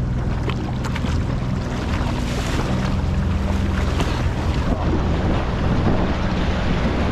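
Sea-Doo FishPro Trophy jet ski under way, its engine running steadily with water rushing along the hull and wind noise on the microphone.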